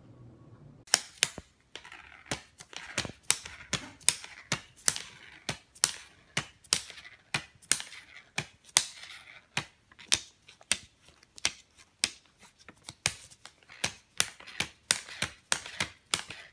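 Plastic (polymer) banknotes crackling and clicking under a tabby cat nosing and pawing through a pile of them: a run of sharp, uneven clicks, two or three a second, starting about a second in.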